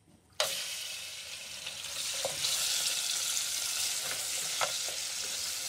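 Raw beef pieces hitting hot ghee in a pot, bursting into a steady sizzle about half a second in, with a few light knocks from a silicone spatula stirring the meat.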